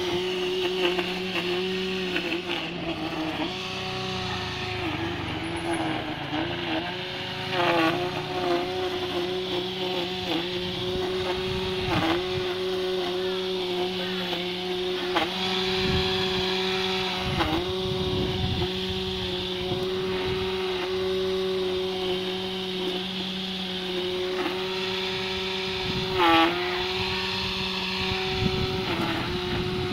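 Small motor of an RC truck converted into a lawnmower, running with a steady whine that dips in pitch for a moment about eight times, with brief clattering at each dip.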